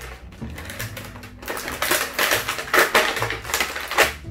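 Clear plastic packaging tray crinkling and crackling as it is flexed and pulled apart by hand, a quick irregular run of sharp crackles that grows denser and louder about a second and a half in.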